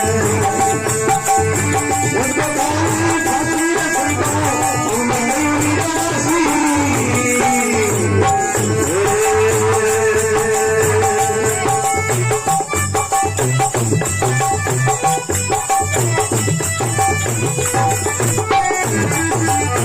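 Devotional folk bhajan music: a held, sliding melody over a steady drum beat with jingling rattle-type percussion.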